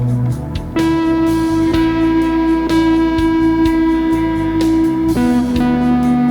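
Electric guitar through effects pedals playing slow, sustained lead notes over an ambient rock backing track with drums: one note held for about four seconds, then a change to a lower held note about five seconds in.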